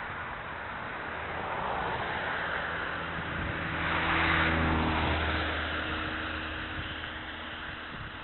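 A motor vehicle passes close by, its engine drone and tyre noise swelling to a peak about four seconds in and then fading. Steady wind noise on the microphone of a moving bicycle runs underneath.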